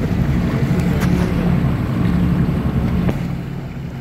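Boat engine running steadily at low speed, dropping slightly in pitch about three seconds in, over a rush of water and wind noise.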